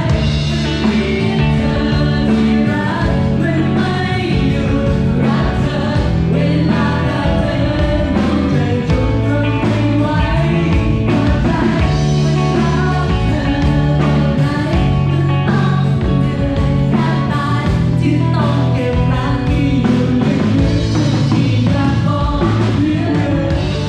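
A pop song sung as a man-and-woman duet over a backing track with a steady beat.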